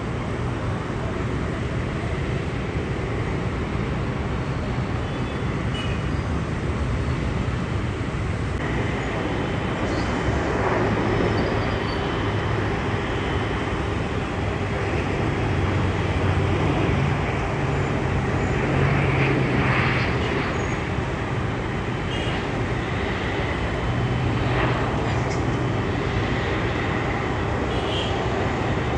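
Airbus A330-200 jet engines running steadily, a continuous roar with a low drone and a thin whine on top, swelling slightly partway through.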